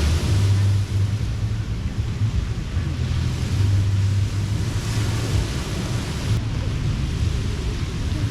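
Ocean surf washing on a sandy beach, a steady hiss of waves that swells now and then, with a low rumble of wind on the microphone.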